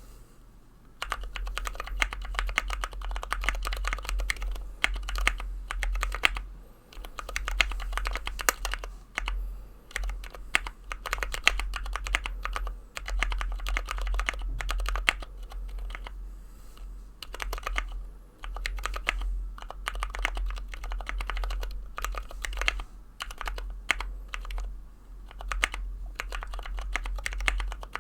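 Typing on a 60% mechanical keyboard with lubed Ergo Clear tactile switches on 67 g springs: quick runs of keystroke clacks that begin about a second in, with short pauses.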